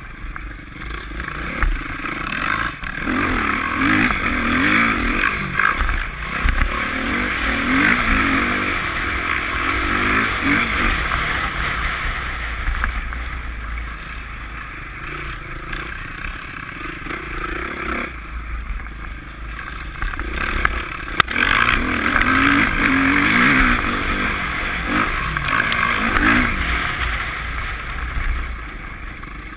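Dirt bike engines revving up and easing off over and over as the bikes ride through snow. The revs drop back briefly several times, and there is a single sharp click about two-thirds of the way through.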